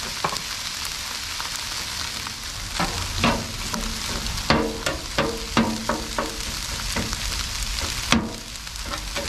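Rice and vegetables sizzling on a Blackstone flat-top griddle's steel cooktop. From about three seconds in, a metal spatula scrapes and clanks against the steel top about twice a second as it chops and spreads the rice, each clank ringing briefly.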